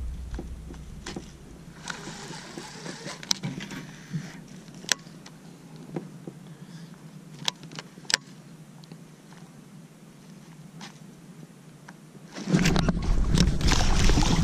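Quiet for most of the time, broken only by a few faint clicks. About twelve seconds in, a hooked bass starts splashing and thrashing at the water's surface, loud and continuous.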